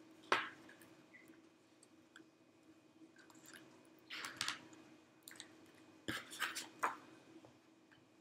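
Faint handling noises of photo prints and painted wooden clothespins on a cardboard pinwheel: a sharp click near the start, then two short bunches of rustling and clicking, one about halfway and one about two-thirds through, over a steady low hum.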